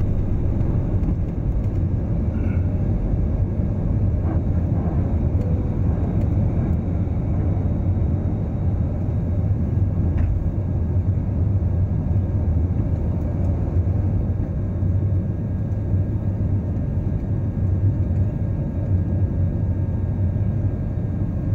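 Jet airliner's engines at takeoff thrust, heard from inside the cabin during liftoff and initial climb: a loud, steady low rumble.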